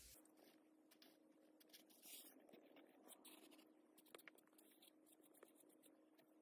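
Near silence: faint pencil scratching on paper in short, scattered strokes, over a faint steady hum.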